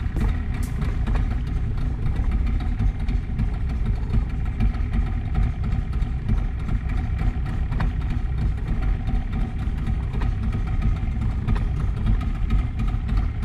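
Yamaha outboard motor idling steadily.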